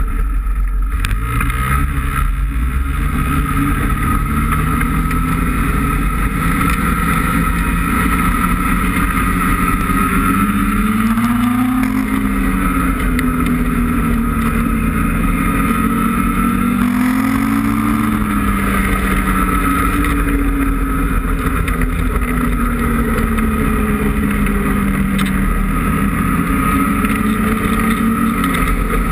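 Ski-Doo 850 E-TEC two-stroke twin snowmobile engine running under way on the trail. Its note rises and falls with the throttle, climbing about twelve seconds in and again around eighteen seconds.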